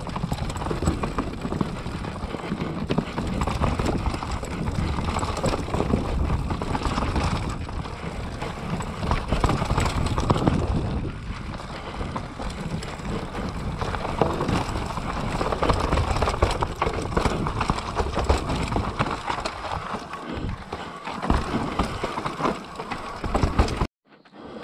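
Continuous clattering and rattling, many rapid knocks over a rushing noise, that cuts off suddenly near the end.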